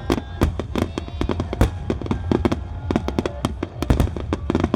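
Starmine fireworks barrage: shells bursting in quick succession, several sharp bangs a second over a continuous low rumble, with music playing underneath.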